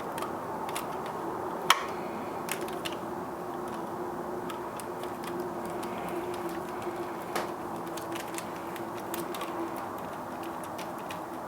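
Scattered light clicks and taps of a small bolt, the ground-wire terminal and a hand tool being handled against a coffee grinder's chassis, irregular and sharpest about two seconds in, over a steady faint hum.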